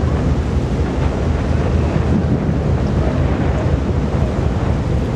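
Wind buffeting the microphone on a ferry's open deck: a steady low rumble with no separate events.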